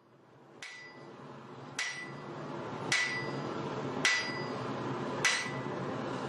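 Ringing metal percussion struck in a slow, even beat, about one strike a second, over a low crowd hum. The sound fades in over the first two seconds.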